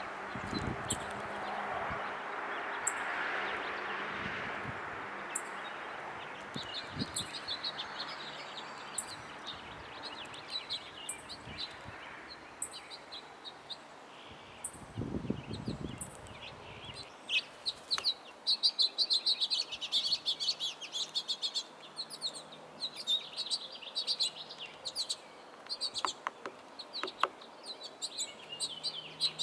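Birds chirping in many short, quick calls, getting busier from about seven seconds in. A soft rushing noise fills the first few seconds, and there is a low thump about fifteen seconds in.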